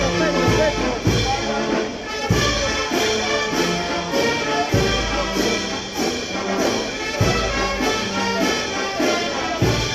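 Brass band music, trumpets and trombones playing a dance tune over a steady beat of cymbal strokes and heavy bass drum hits.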